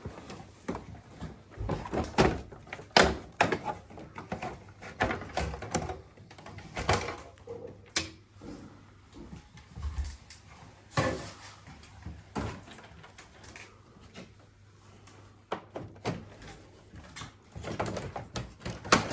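Irregular clicks and knocks of hard plastic parts of an air conditioner being handled and taken apart, with a faint low hum underneath.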